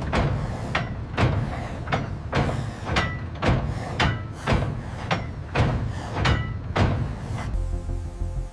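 A regular run of heavy knocks, about two a second, each with a brief ring. About a second before the end they give way to a steady low hum with music.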